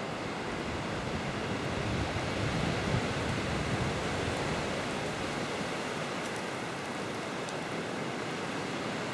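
Steady wind rushing over the microphone: a continuous, even hiss.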